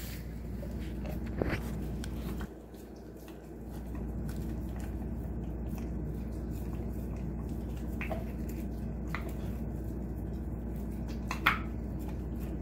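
Alaskan Malamute chewing and gnawing raw beef ribs: wet squishy chewing with a few sharp clicks of teeth on bone, the loudest about a second before the end, over a steady low hum.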